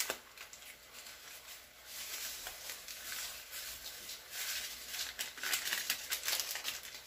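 A plastic spice pouch crinkling and rustling as it is torn open and shaken out, in irregular crackly strokes. Under it runs a steady hiss from a frying pan of mussels and shrimp simmering in wine.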